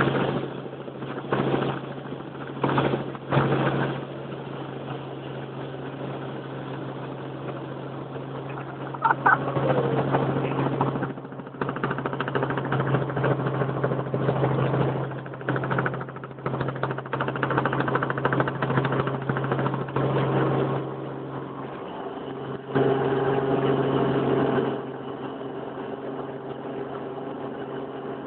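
An engine running steadily with a low hum, its noise swelling and easing at times; the hum drops away about 22 seconds in.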